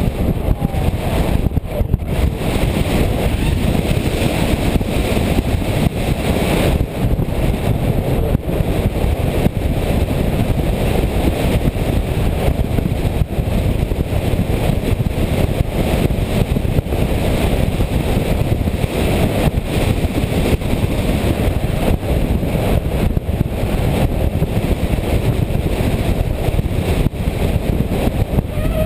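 RC airplane in flight: its motor and propeller running steadily, heard through the onboard camera with wind rushing over the microphone, a dense, unbroken noise.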